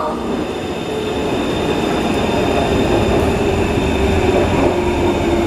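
Cabin sound of a Kawasaki C151 metro train in motion: a steady rumble of wheels and running gear on the track, with a faint whine held at one pitch.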